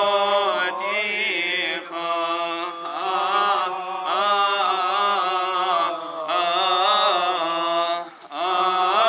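Coptic Orthodox liturgical chant: voices sing a slow, winding melody in long phrases, with short breaks between them and a clear pause for breath about eight seconds in.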